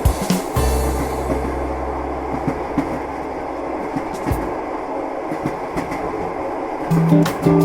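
Train carriage running noise: a steady rumble with faint clicks of the wheels over rail joints. A held low note dies away about four seconds in, and jazz bass notes come back in near the end.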